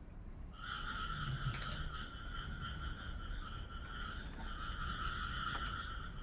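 A steady, high chirring chorus of calling animals, in two pitches, that sets in about half a second in and carries on without a break, with a few faint clicks over it.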